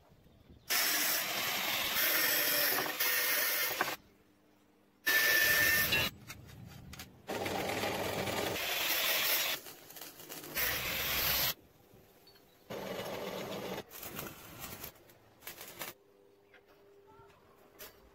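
Steel tube being cut with an angle grinder and arc-welded, heard as a run of short clips of loud hissing, crackling noise that start and stop abruptly. The last couple of seconds are quiet apart from a faint steady hum.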